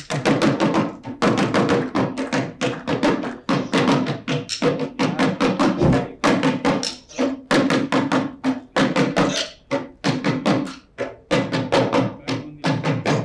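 Kodagu dolu drum beaten with sticks in a fast, steady rhythm of about five or six strokes a second.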